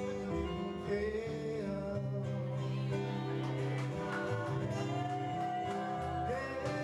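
A man singing into a microphone to acoustic guitar accompaniment, holding one long note in the second half.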